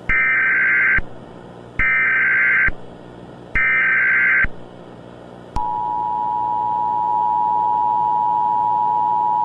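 Emergency Alert System alert tones: three short SAME header data bursts, each just under a second with brief gaps between them. About halfway through, the steady two-tone attention signal begins and holds, announcing an emergency broadcast.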